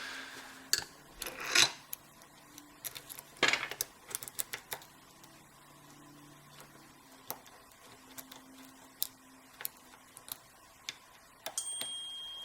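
Lock-picking tools clicking and clinking against each other and against a small padlock in irregular light clicks, with a few louder knocks in the first few seconds.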